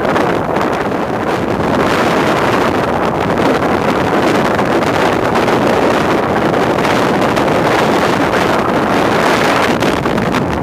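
Strong bora wind, about 30 knots gusting to 35, buffeting the microphone in a loud, steady rush that swells and eases with the gusts.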